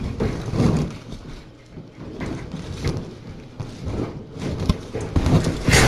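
Irregular thumps and rustling of a person moving about and handling things, with one loud knock near the end.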